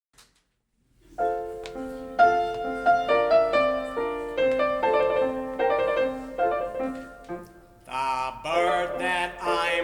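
Solo piano introduction to an art song, then a tenor voice enters with vibrato about eight seconds in, over the piano.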